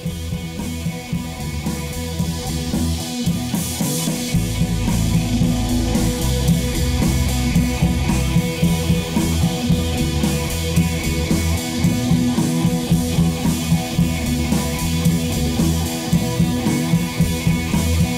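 Rock background music with electric guitar and drums and a steady beat.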